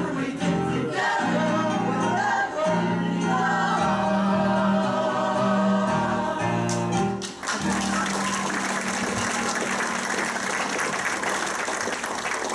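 The last bars of a show tune, sung with musical accompaniment and ending on held notes. The music stops about halfway through, and the audience breaks into steady applause.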